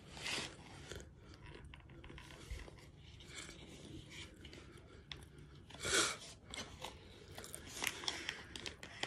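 Close-up chewing and biting of cornstarch: a wet crunching with dense crackly clicks, and a few louder bites, about a third of a second in, around six seconds in and near eight seconds.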